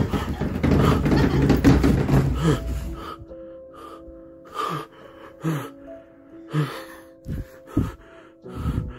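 A person gasping for breath in short, sharp, frightened breaths, about one a second, over an eerie drone of background music. In the first three seconds a loud, rough noise dies away.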